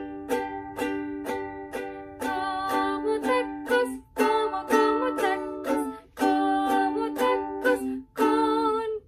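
Ukulele strummed in a steady, even rhythm. From about two seconds in, a woman's voice sings a melody along with it, in short phrases broken by brief pauses.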